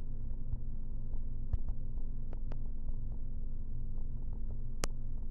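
Steady low hum with a few scattered light clicks, typical of fingertip taps while typing on a phone.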